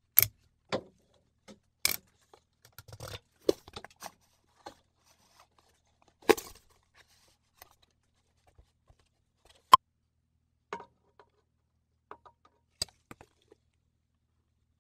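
Hard plastic clicks, taps and short scrapes as a polycarbonate U-channel joiner (Hikari KTP-910K) is worked onto the edge of a 4 mm corrugated plastic board and the board is handled. The sharp clicks come at irregular intervals, several seconds apart.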